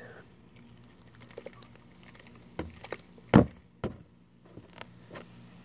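Scattered clicks and knocks from hands handling the lava lamp and its lid, with one louder thump about three and a half seconds in and a second one just after, over a faint steady low hum.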